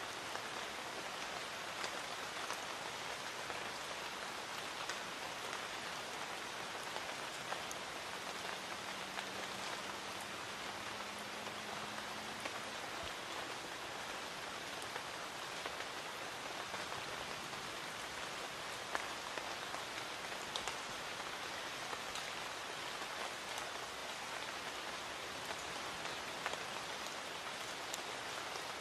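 Light rain falling steadily in a garden: an even patter of drops, with single drops ticking out sharply now and then. A faint low hum sits under it for a few seconds in the middle.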